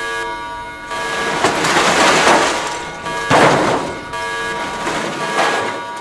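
KK13 Dragonfly quadcopter's motors whining steadily. From about a second in come rough rushing noise and several thuds as it crashes into the grass and cartwheels, with the loudest hit about three and a half seconds in.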